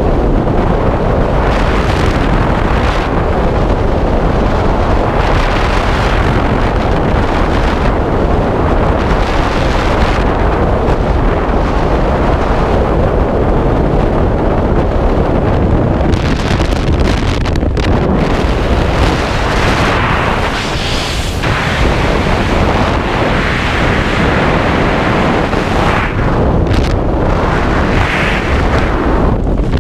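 Freefall airflow blasting across a skydiver's camera microphone: a loud, steady rush of wind that swells and eases every second or two.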